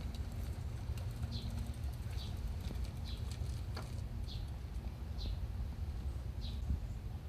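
A bird calling: one short, high chirp that slides down in pitch, repeated about once a second, over a steady low rumble.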